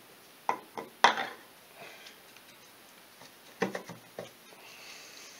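An ATV engine stator being handled and fitted into its metal side cover: a series of short clicks and knocks of metal parts, the loudest about a second in and another cluster near four seconds in, with a faint hiss near the end.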